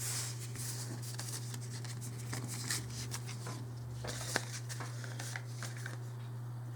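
Trading cards being handled and sorted, a light rustle with a few soft clicks, over a steady low electrical hum.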